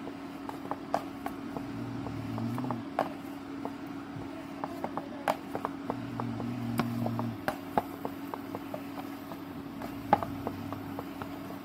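A wooden rolling pin rolls out dough on a round rolling board. It makes a low rumble on some passes and many scattered sharp clicks and knocks as the pin and board shift, over a steady low hum.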